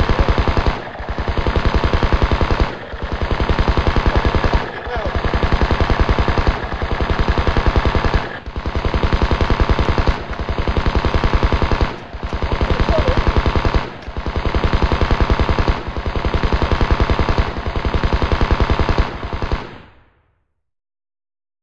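M16 rifle firing on full automatic: rapid shots in long bursts of about two seconds each, nearly back to back, which stop suddenly about twenty seconds in.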